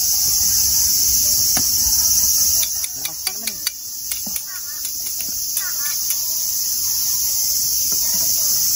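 A steady, high-pitched chorus of summer cicadas, with a few quick metal clicks from tongs and spatula on the griddle about three seconds in.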